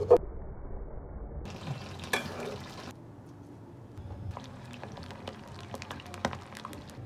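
Cooking sounds. A sharp knock at the start, then a utensil stirring rice in a pot. From about four seconds in, hot oil crackles and pops around peeled boiled eggs frying in a pan.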